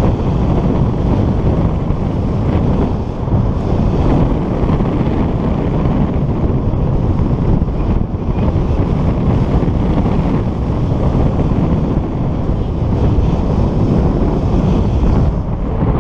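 Loud, steady wind noise: the airflow of paraglider flight buffeting the camera's microphone as a low rumble of rushing air.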